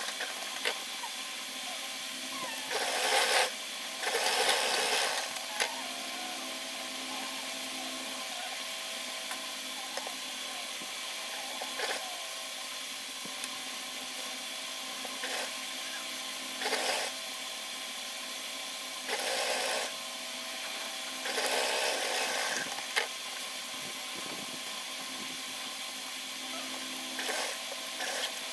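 Sewing machine stitching a blouse sleeve in short runs of about half a second to a second, several times, over a steady hum.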